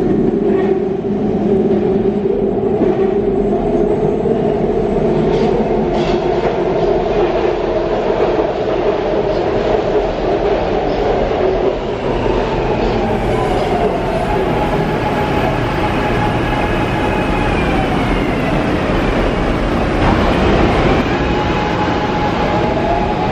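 SEPTA Market-Frankford Line AdTranz M4 subway-elevated train running, with a steady rumble of wheels on rail. In the second half a motor whine rises and falls in pitch as the train moves along the platform.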